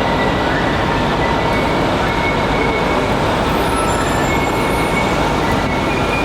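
Rail transit train running on its track: a steady rumble with faint, intermittent high squeals.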